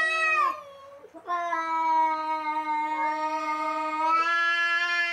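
Cat yowling in a fight standoff with another cat: one call trails off about half a second in, then a long, steady yowl starts a little after a second in and holds on, stepping up slightly in pitch near the end.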